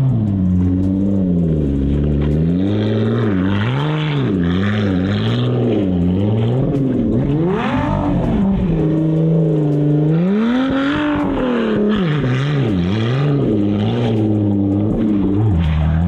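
Lotus Evora GT's supercharged V6 revving up and down over and over as the car spins donuts in snow, its pitch climbing and dropping every second or two.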